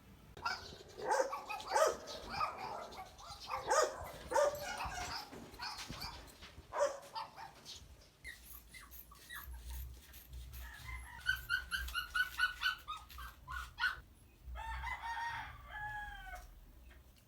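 Chickens calling: a string of clucks and squawks, then a run of short repeated calls, and a longer crow-like call that falls in pitch near the end.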